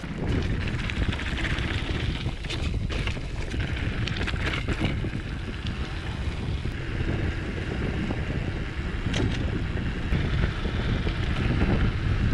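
Wind rushing over the camera microphone while a mountain bike rolls downhill. Scattered knocks and rattles from the bike sound over the trail, most of them a few seconds in and again later on.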